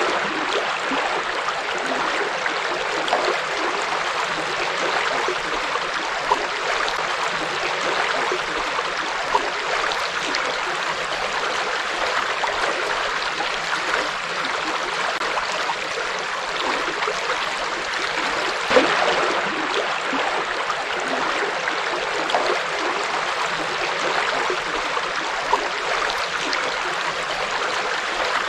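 River water flowing over rocks: a steady rushing and babbling, with a few small louder splashes.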